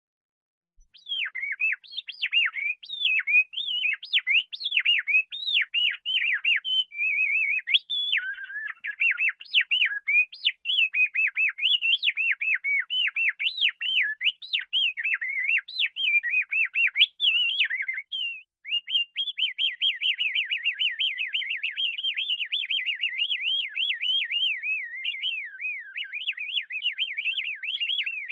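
Canary singing a long, continuous song of varied warbled and whistled phrases. About two-thirds of the way through, after a brief pause, it breaks into a rapid, even trill.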